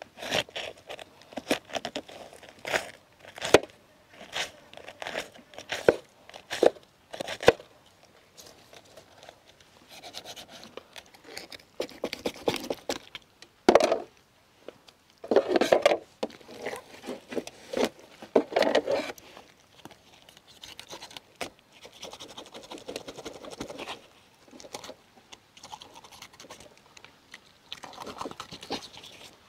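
Small, sharp knife scraping and cutting through a large fish's scales and skin, with crunching and tearing as the fish is cleaned and its gills are pulled out. Irregular short scrapes and clicks, quick at first, with a run of louder strokes in the middle.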